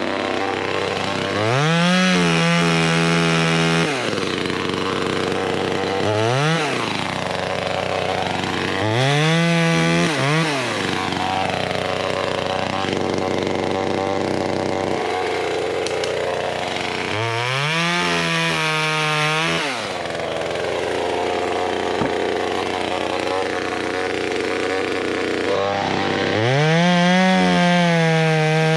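Small two-stroke top-handle chainsaw revving up and dropping back about five times while cutting small saplings, running between the revs.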